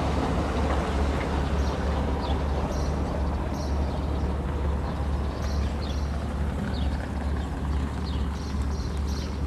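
Steady low hum of cruise ship engines, with small birds chirping in short, high, falling calls over it, more often in the second half.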